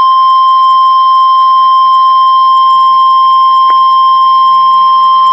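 NOAA Weather Radio 1050 Hz Warning Alarm Tone: a single loud, steady tone, the signal that an urgent warning message is about to be broadcast.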